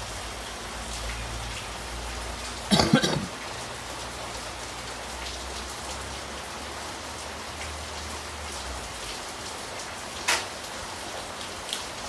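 Hermetic LG refrigerator compressor (1/8 HP) running normally after being jumpered, with a low hum and a steady hiss of air pumped out through its open copper discharge tube. About three seconds in there is a short loud sputter as a finger closes the tube, and there is a sharp click near ten seconds.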